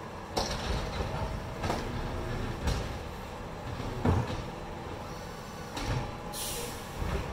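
Automated side-loader garbage truck emptying a wheeled waste cart with its hydraulic arm, its diesel engine running underneath. Several loud knocks and bangs come from the cart and arm, and there is a short hiss near the end.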